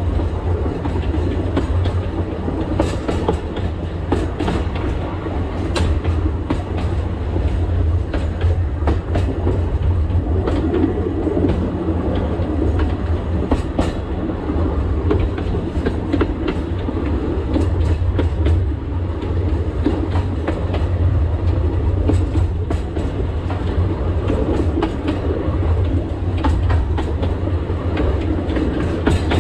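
Narrow-gauge Alishan Forest Railway train running along the line: a steady low rumble, with irregular sharp clicks and knocks from the wheels over the track.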